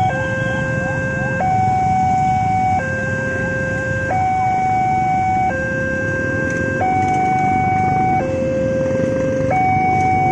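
Railroad crossing warning alarm sounding from the crossing's pole loudspeaker: two electronic tones, a low one and a higher one, take turns, each held for about a second and a half. Underneath is the low rumble of waiting motorcycle and car traffic.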